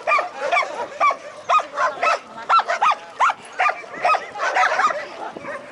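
Dogs barking and yelping repeatedly, about two barks a second, with some calls overlapping.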